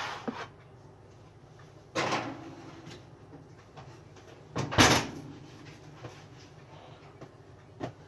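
A metal roasting pan going into an electric range's oven: a sharp clatter about two seconds in that fades away, then a loud bang just before five seconds as the oven door is shut, and a small click near the end.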